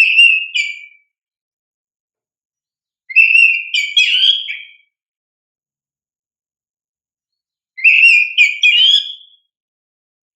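Oriental magpie-robin (kacer) in full song: three short, loud whistled phrases, one at the start, one about three seconds in and one about eight seconds in, with silence between.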